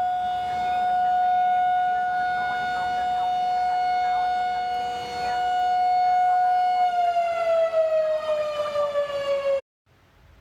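Outdoor warning siren sounding a steady single tone for a severe thunderstorm warning, its level swelling and fading, then winding down with falling pitch about seven seconds in. The sound cuts off abruptly near the end.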